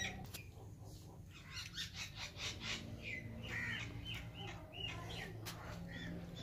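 Birds chirping: a run of short, quick calls, busiest through the middle, over a faint steady low hum.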